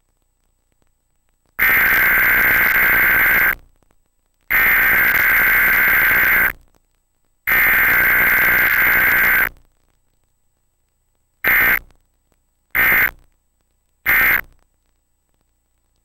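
Emergency Alert System digital data bursts from a cable system's Required Weekly Test: three long bursts of harsh data tone about a second apart (the SAME header that encodes the alert), then three short bursts that mark the end of the message.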